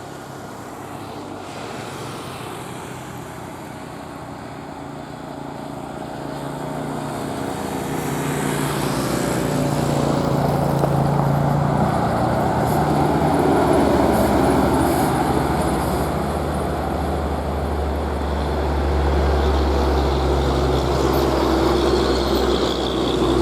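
Road traffic with heavy vehicles, trucks and a bus, passing on the road: a deep engine drone and tyre noise that grow louder about eight seconds in and stay loud.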